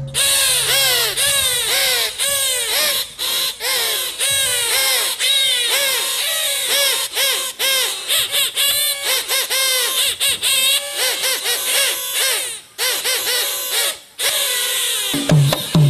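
Traditional Javanese dance accompaniment music in a passage led by quick, nasal, arching high notes with the drums held back, the drumming coming back in near the end.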